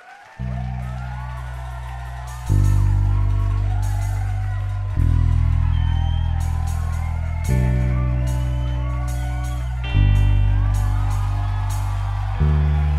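A rock band playing live, opening a song with long, low sustained notes that change about every two and a half seconds, each starting loud and slowly fading, while the crowd cheers and whoops over it.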